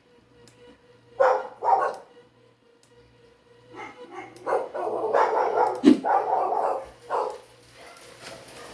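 A dog barking: two short barks a little over a second in, then a longer run of sound from about four seconds in.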